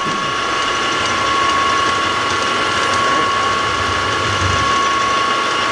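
Milling machine spindle running a 1/4-inch end mill as it cuts a slot into a round metal sleeve: a steady high whine over the noise of the cut.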